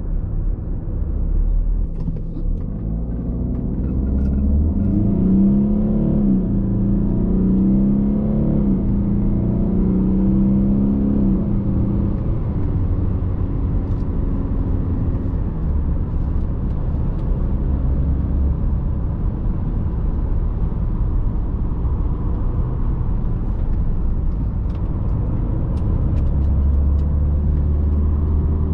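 Audi A6 C6 2.0 TDI four-cylinder diesel engine pulling the car along over steady road and tyre rumble. The engine note rises and falls several times in the first half, then settles.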